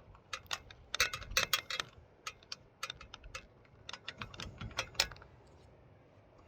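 Hands handling the snorkel's small mounting hardware: quick, irregular clicks and taps of hard parts. They come in clusters about a second in and again around four to five seconds in.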